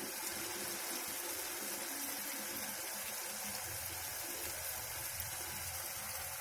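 Chicken koftas and masala sizzling steadily in a pan as they are fried (bhuna).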